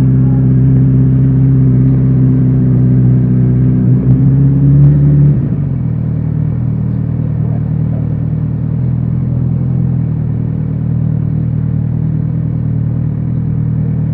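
Kawasaki Z900RS inline-four motorcycle engine and exhaust running under way. The pitch climbs slightly for about five seconds, then drops suddenly and the engine runs on steadily at a lower, quieter pitch.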